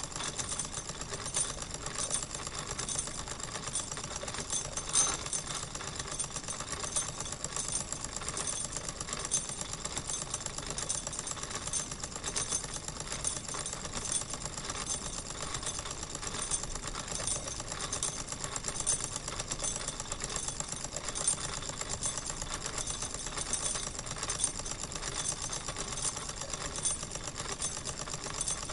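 Wilesco toy steam engine purring along at a steady speed, its fast, even ticking beat unbroken throughout.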